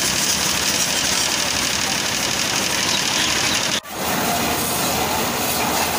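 High-pressure washer jet spraying water onto a motorcycle: a steady hiss of spray over the washer's running motor, broken for an instant about four seconds in.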